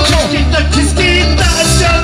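Live band music: an electric guitar playing over drums and keyboard with a steady pulsing beat.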